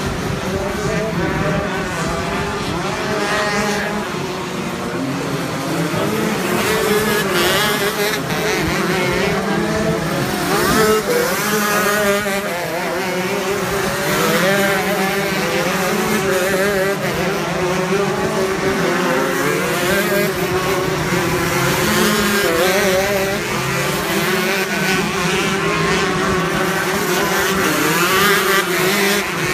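Two-stroke shifter kart engines racing hard, their pitch rising and falling continuously as they rev up and drop through the gears.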